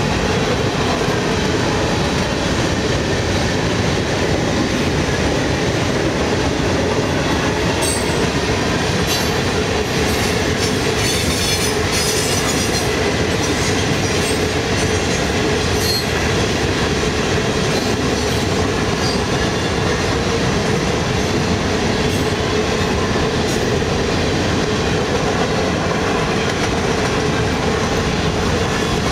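A long CSX freight train's cars, covered hoppers and tank cars, rolling past at speed. There is a steady loud rumble with wheels clacking on the rails, and brief high-pitched wheel squeals through the middle.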